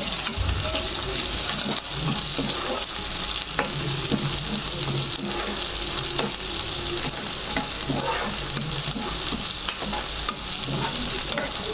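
Chopped onions and green chillies frying in oil, sizzling steadily while a spatula stirs them, with scattered light scrapes and taps of the spatula on the pan. The ginger-garlic paste has just gone in.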